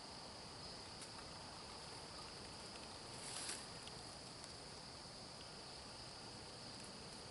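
Steady, faint, high-pitched chorus of crickets, with a brief rustle about halfway through.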